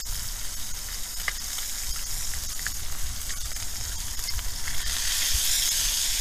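Bacon rashers frying in a small pan: a steady sizzle with a few faint crackles, a little louder from about five seconds in.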